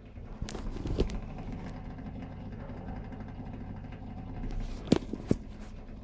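Front-loading washing machine running its drain pump with a steady low hum. Sharp clicks or knocks come about half a second and a second in, and twice near the five-second mark.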